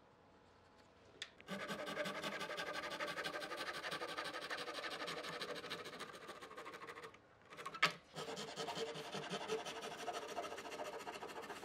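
Handsaw cutting through thin wooden strips in quick back-and-forth strokes, starting about a second and a half in. It pauses briefly with a sharp knock about eight seconds in, then sawing resumes.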